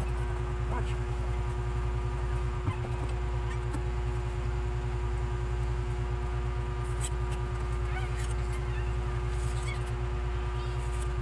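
A steady low machine hum with a constant higher tone over it, and faint scattered clicks and rustles.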